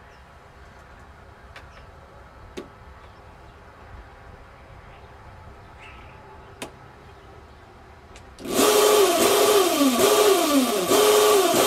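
A few sharp clicks of a metal roller chain and tensioner ring being handled. About eight seconds in, a drive motor starts suddenly and runs loudly, its pitch dropping and recovering a little more than once a second as the load pulses.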